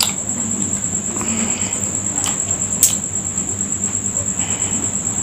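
A few sharp clicks of ice and glass as a glass mug packed with ice cubes and tea is handled and lifted. Under them runs a steady, high-pitched trill.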